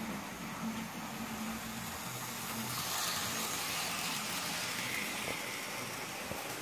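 Hornby OO-gauge model train running on the layout's track: a steady low motor hum, with the whir of wheels on the rails growing louder about three seconds in as the wagons pass close by, then easing off.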